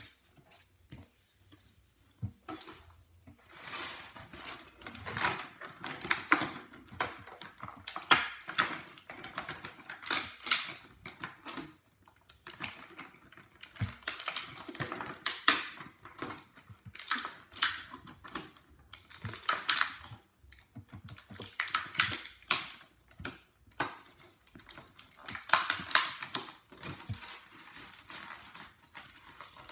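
Clear plastic blister packaging crackling and the plastic parts of a Schleich rabbit hutch toy clicking and clattering as they are handled and set down on a table, in irregular clusters every second or two.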